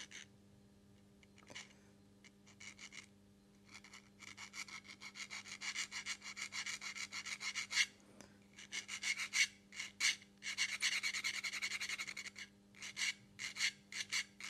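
Diamond needle file scraping back and forth along the edge of a thin laser-cut metal model part, in quick short strokes of about four a second, filing down the little notches left where the part was clipped from its sheet. The strokes are sparse at first and come thick and louder from about four seconds in, with a brief pause near the middle.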